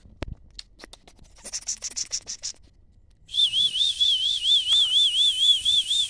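Pressure cooker letting off steam: a run of quick hissing puffs, then from about halfway a loud, shrill whistle over steady steam hiss, its pitch wavering up and down about four times a second.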